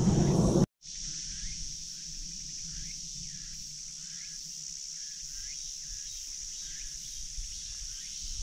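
Steady high-pitched insect drone, with a faint short chirp repeating about twice a second. Under a second in, a louder low rumbling noise cuts off abruptly.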